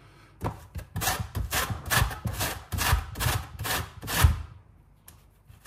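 Rhythmic rasping scrapes, about three strokes a second, of citrus zest being worked on a kitchen grater. The strokes stop about four and a half seconds in.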